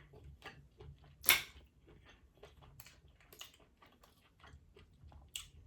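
Close-miked eating sounds from a seafood boil: wet chewing and smacking with many small clicks. There is a sharper, louder click about a second in and another near the end.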